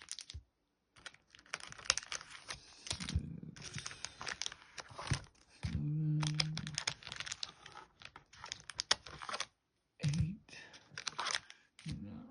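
Plastic and cardboard packaging of a trading-card booster box crinkling and tearing as it is opened and its foil packs handled: irregular runs of crackles and clicks, with a short low hum about halfway through.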